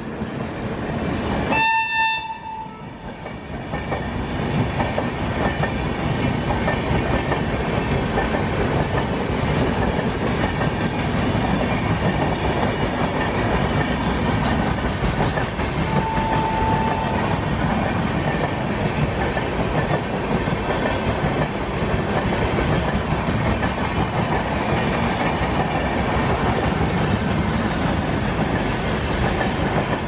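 Indian Railways electric locomotive's horn sounds once briefly about two seconds in, then the steady rumble and clickety-clack of a long rake of passenger coaches passing at speed. A brief faint horn note comes near the middle.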